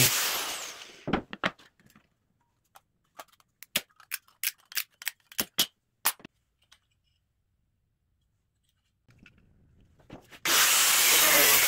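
Angle grinder cutting into a wooden board, winding down within the first second; then a run of sharp clicks and taps from tools and board pieces being handled; the grinder cuts again from about ten and a half seconds in.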